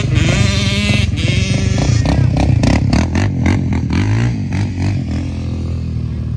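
Sport ATV engines running, their pitch rising and falling with the throttle.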